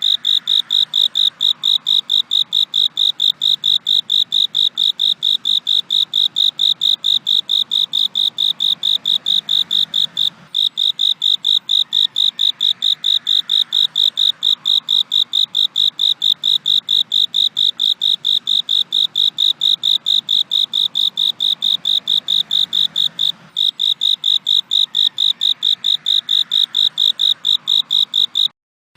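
A cricket chirping in a steady, rapid, evenly spaced rhythm of high-pitched chirps, breaking off very briefly a few times.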